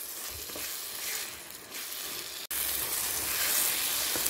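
Meat frying in a berbere and onion sauce in a pan, sizzling while a wooden spatula stirs through it. The sizzle jumps suddenly louder a little over halfway through.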